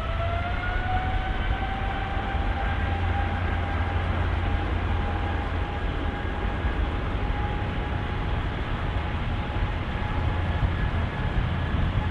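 Singapore Airlines Boeing 777 twin jet engines running up to high thrust on the runway. Their whine rises in pitch over the first couple of seconds, then holds steady over a deep rumble.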